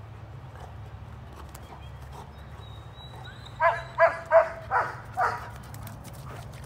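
A German Shepherd barking five times in quick succession, about three and a half seconds in.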